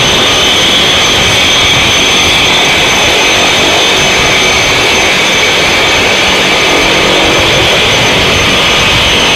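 Jet engine running steadily on the ground: a loud, even rushing noise with a thin high-pitched whine over it, holding constant throughout.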